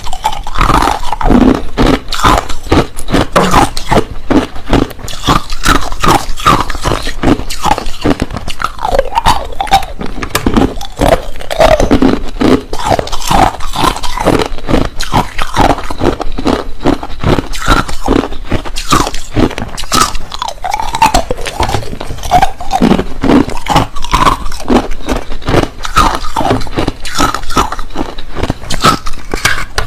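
Clear, hard crushed ice being bitten and chewed, a steady stream of rapid, loud crunches.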